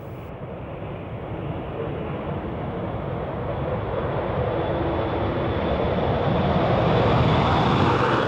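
Two Canadair NF-5 jet fighters, twin General Electric J85 turbojets with afterburners lit, running on the takeoff roll: a steady jet rush that grows louder as they accelerate toward the listener.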